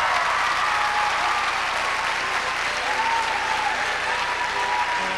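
Audience applauding and cheering at the end of a color guard show, with a few shouts over the clapping.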